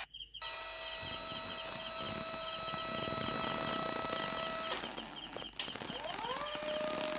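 Small DC electric motor driving a toy crane's string winch, giving a steady whine. It cuts out a little before five seconds in, then spins up again with a rising whine about six seconds in as the winch hauls the load.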